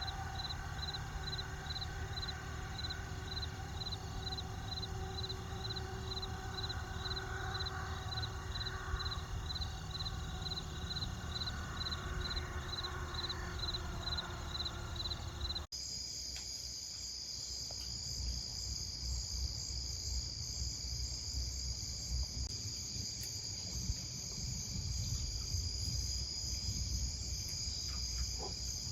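Insects chirping outdoors: a high, even chirp repeating about twice a second, then, after a cut about 16 seconds in, a continuous high-pitched insect trill, with a low rumbling noise underneath.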